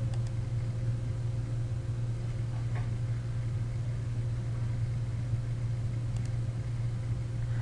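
Steady low hum, with a faint click just after the start and another about six seconds in.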